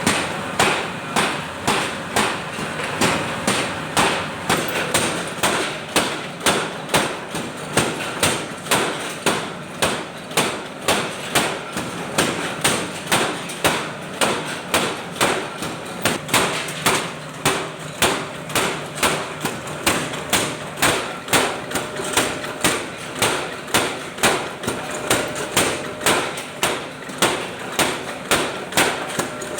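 Forging hammer striking hot metal in a steady rhythm, about two blows a second, over a faint steady hum.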